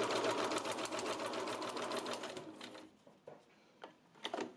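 Electric sewing machine running a straight stitch through a cardboard-backed paper postcard: a rapid, even run of needle strokes that slows and stops about two and a half seconds in, followed by a few light clicks.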